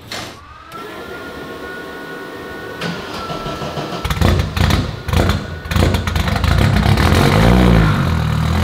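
Audi Quattro S1 E2 Group B rally car's turbocharged inline-five being started: a steady whine for the first few seconds, then the engine cranks and fires about four seconds in with uneven bursts before settling into continuous running.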